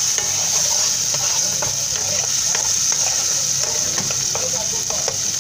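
Chopped tomatoes, onions and fresh pepper sizzling in hot oil in an aluminium pot, with a metal spoon stirring them and scraping and tapping against the pot.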